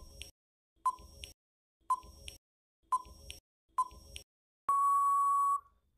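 Countdown timer sound effect: five short beeps about once a second, then one longer steady beep near the end marking that time is up.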